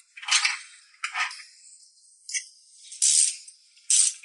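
Hand ratchet wrench clicking in five short bursts about a second apart as it turns an engine mount bolt under the car.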